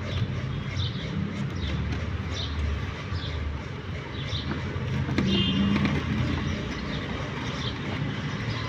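Screwdriver undoing the screws of an electric sprayer's motor housing: light repeated squeaks and scrapes about once a second over a steady background rumble.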